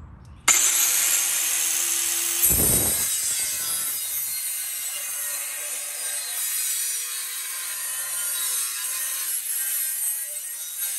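Handheld angle grinder cutting a sheet-metal brake dust shield behind a wheel hub. It starts suddenly about half a second in and runs briefly with a steady whine. About two and a half seconds in the disc bites into the metal, and from there it keeps up a steady, high, hissing grind.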